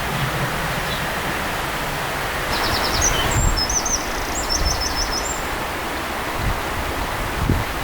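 Steady rushing outdoor background noise with a few low bumps. A small songbird sings a short, quick phrase of high trills and chirps about three seconds in.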